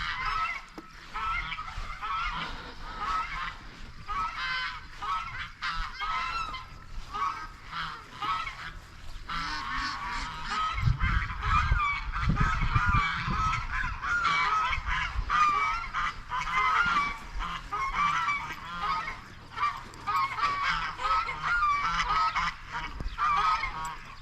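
A hen squawking in a long, rapid, unbroken series of loud, harsh calls, scolding another animal.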